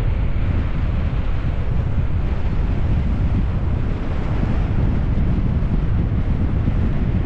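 Wind buffeting the microphone of a camera on a bicycle speeding downhill: a steady, loud low rumble with no letup.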